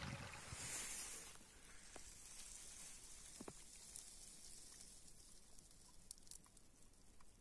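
Near silence: the faint, steady hiss of a shallow stream, louder for the first second or so, with a few soft clicks.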